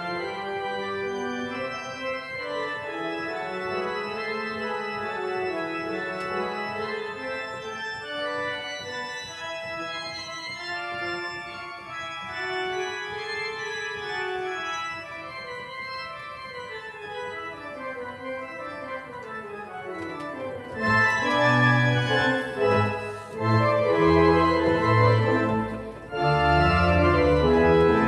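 Church organ played on manuals and pedals. A softer, flowing passage of held, moving notes grows much louder and fuller about three quarters of the way through, with deep pedal notes entering, then dips briefly before swelling again near the end.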